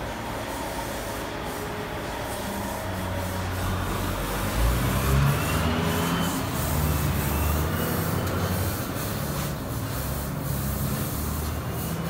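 Rubbing and handling noise on a phone's microphone as it is moved about, over a low hum that starts about three seconds in and grows louder about four seconds in.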